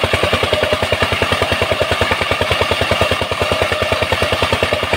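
Power tiller's single-cylinder diesel engine running steadily under load, driving a home-made water pump, with even exhaust beats about a dozen a second. Water gushing and splashing from the pump outlet hisses beneath it.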